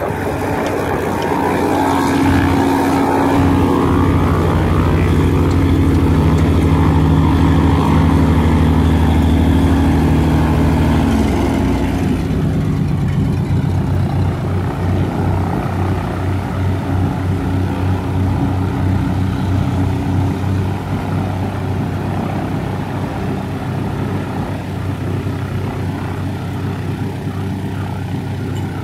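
Cessna 188 agricultural plane's piston engine and propeller running at taxi power, a loud steady drone. About twelve seconds in the engine note drops to a lower, pulsing idle that slowly fades.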